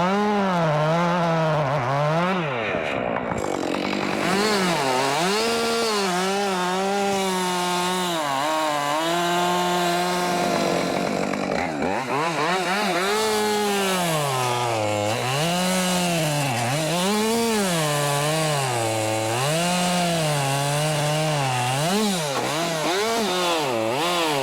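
Two-stroke chainsaw at full throttle cutting oak. Its engine pitch sags repeatedly as the chain bites into the wood and climbs back when the load eases, about every second or two.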